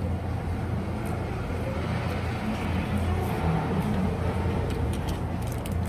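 Steady low hum and rumble of a fast-food restaurant's background noise, with a few faint clicks.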